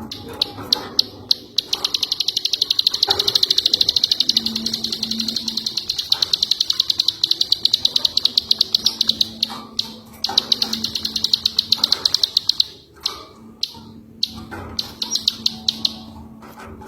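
Ciwah songbird singing long, very fast, high-pitched rattling trills of clicky notes, several runs broken by short pauses.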